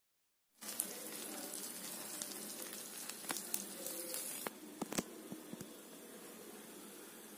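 Food sizzling as it fries in hot oil, an even hiss with scattered crackles and pops. It starts about half a second in and eases off at about the middle.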